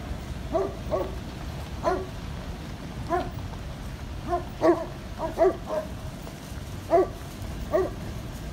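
A dog barking in short, sharp barks, about a dozen at irregular spacing, some in quick runs of two or three.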